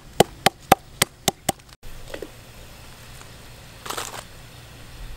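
Knife blade striking lemongrass stalks on a wooden stump chopping block: about seven quick, sharp blows at roughly four a second, stopping about two seconds in. A short rustling hiss follows about four seconds in.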